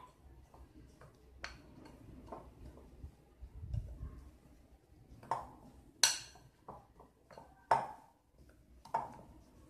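A spoon scraping and clinking against a glass mixing bowl while stirring a thick, crumbly barley-flour mixture, with several sharp clinks, the loudest about six and seven and a half seconds in.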